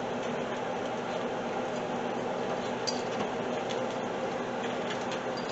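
Steady kitchen hiss with a few light clinks and scrapes of a serving utensil against a skillet as chicken in Alfredo sauce is worked loose and scooped.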